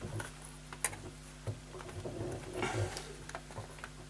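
Light handling clicks and taps as fingers press rubber membrane pads against the button contacts of an opened 1980s Bush clock radio, with a short rustle about two to three seconds in. A steady low hum runs underneath.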